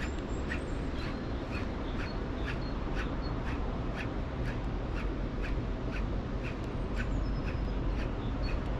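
Baitcasting reel ticking about twice a second as the lure is wound in, over a low steady rumble.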